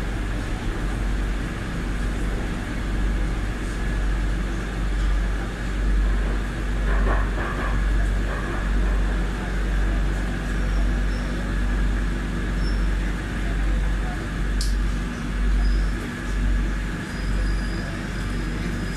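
Madrid Metro Line 5 train heard from inside the car, running through the tunnel and pulling into a station: a steady low rumble with a motor hum, swelling and easing every second or two.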